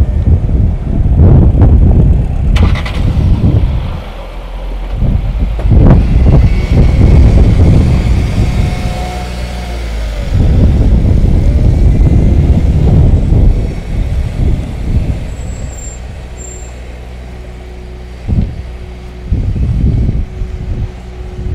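Car engine running as the vehicle creeps forward in slow traffic, under a heavy, uneven low rumble of wind on the microphone. There is a single sharp click about three seconds in.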